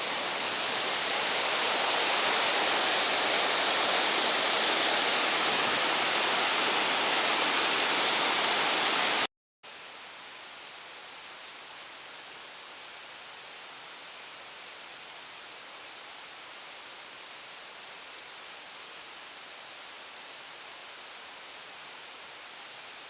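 Steady rushing water, loud and even. About nine seconds in it cuts off abruptly to a much quieter, steady hiss.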